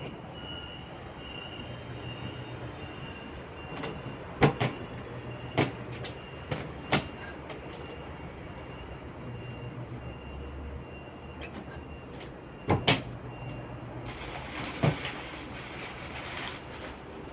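Sharp clunks and knocks of fridge parts and containers being handled and set down, spread out over a steady low hum; a hiss joins near the end.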